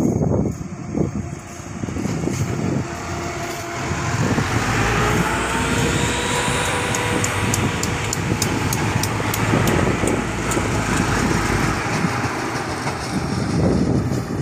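Commuter Line Jenggala diesel multiple unit passing close by: the engine runs under a steady rumble with a slowly gliding whine, and the wheels give a quick run of sharp clicks, about four a second, as the cars go past.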